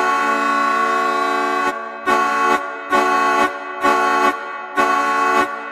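Hockey arena goal horn sounding after a goal: one long blast, then four shorter blasts about a second apart, and another long blast starting near the end.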